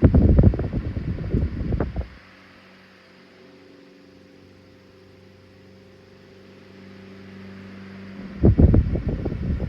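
Emerson 29646 12-inch brass-blade oscillating table fan running with a steady motor hum. Twice, its air stream buffets the microphone in a loud low rumble lasting about two seconds as the oscillating head sweeps past, the second starting near the end.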